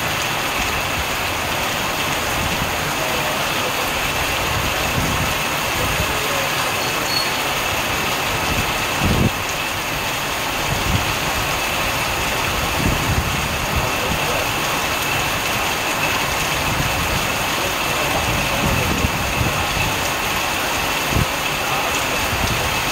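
Heavy rain pouring onto a paved street and parked cars, a steady hiss, with a few brief low thumps along the way.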